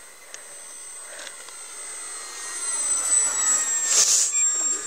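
Durafly T-28 Trojan RC model's electric motor and propeller whining in a close pass, growing louder to a peak about four seconds in, its pitch dropping slightly as it goes by.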